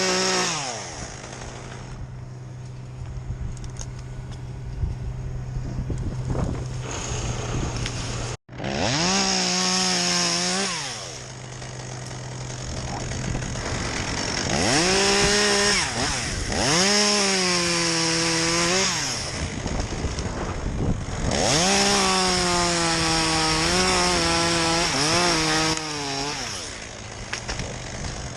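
Chainsaw idling, then revved up again and again in long bursts, its engine note dipping and wavering under load as it cuts into wood. The sound cuts out for an instant about a third of the way in.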